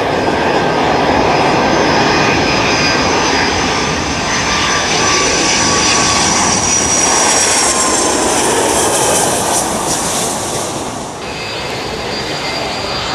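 Jet airliner engines running loud at close range, a dense rushing noise with a high whine over it. The hiss swells to a peak about eight to ten seconds in and falls away abruptly about eleven seconds in.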